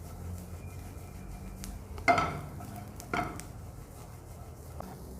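Metal cookware clanking twice, about a second apart, each strike ringing briefly, over a steady low hum.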